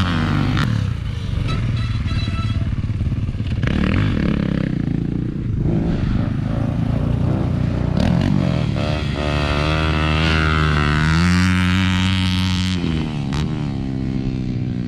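Dirt bike engines revving and running, the pitch rising and falling with the throttle. Near the end, a long held rev drops away.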